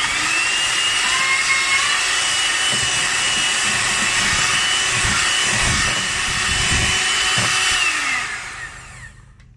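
Electric hand mixer beating ube halaya into egg yolks and sugar: the motor's whine rises as it starts, holds steady, then winds down near the end as it is switched off.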